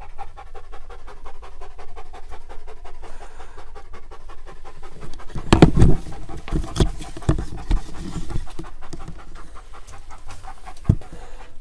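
Dog panting rapidly and noisily, close by, with a few louder thumps about halfway through and a single click near the end.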